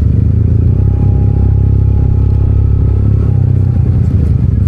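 Maxi-scooter engine running steadily while riding: a constant low-pitched drone.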